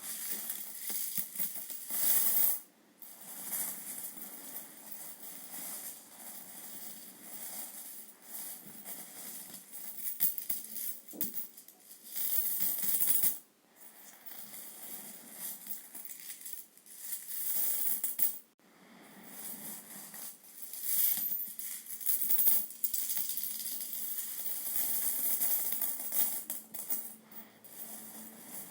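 Piles of euro coins falling and sliding over each other, making a dense stream of small metallic clinks and rattles. It breaks off briefly three times.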